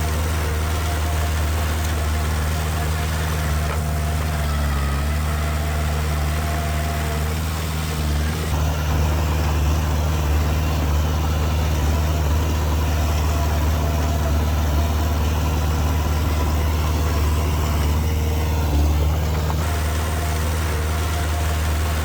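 Heavy diesel earthmoving machinery running steadily at a low, even engine speed, with no revving.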